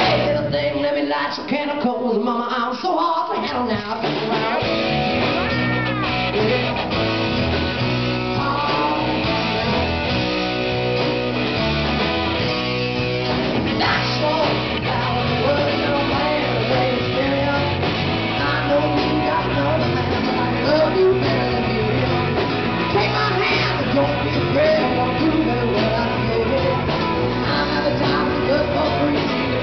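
Live rock band playing: a woman singing over electric guitars and a drum kit. The bass and drums drop out for a couple of seconds about a second in, then the full band comes back in.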